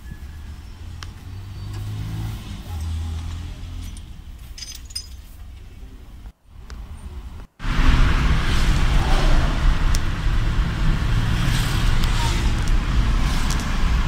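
Honda Fit's four-cylinder engine idling steadily, heard from inside the cabin, then after a cut the car being driven, with louder engine and road noise. It runs smoothly, its cylinder 2 misfire repaired.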